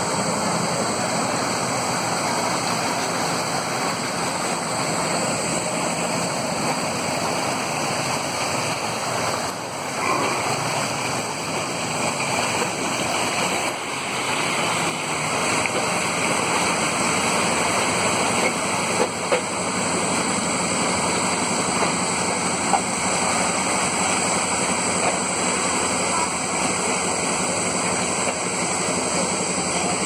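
Steady rush of flowing canal water, with a few short knocks around the middle.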